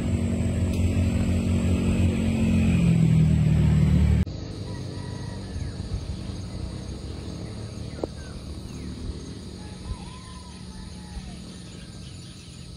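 A motor vehicle engine running, its low pitch rising slightly, cut off abruptly about four seconds in. Quieter outdoor ambience with a few faint short chirps follows.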